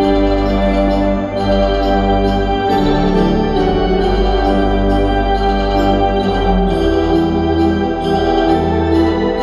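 Kimball pipe organ playing full, sustained chords over a deep held bass, the chords moving every second or so.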